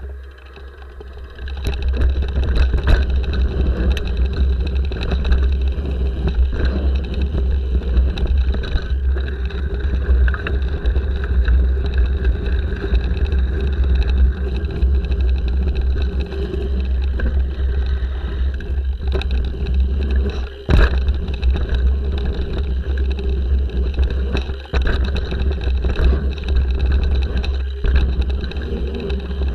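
Wind buffeting and ride noise on a handlebar-mounted action camera as a mountain bike rolls down a dirt and gravel trail: a heavy low rumble with scattered knocks and rattles from the bike over bumps. It picks up about a second and a half in.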